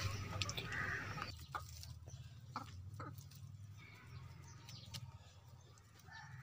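Faint rustling and small scattered clicks of rabbits feeding on dry grass and hay, over a low steady hum, with a brief high chirp about a second in.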